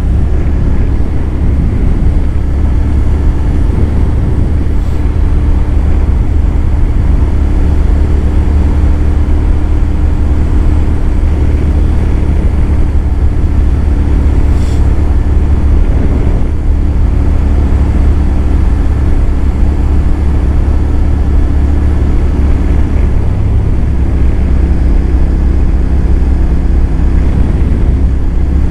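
Royal Enfield 650 parallel-twin motorcycle engine running at a steady cruise, with wind rushing over the helmet-mounted microphone.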